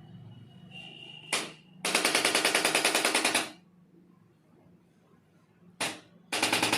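Rapid mechanical tapping at roughly a dozen strokes a second, in two bursts of about a second and a half each, each preceded by a short blip. This is typical of a handheld electric percussion tool being run against the patient's back during a chiropractic treatment.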